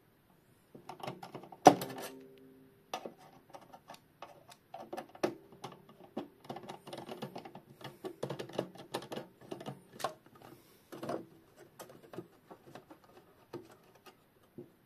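Small metal clicks, taps and knocks of an old Junghans clock being worked on by hand as its movement is unscrewed and freed from the case. A sharp knock about two seconds in sets off a brief metallic ring.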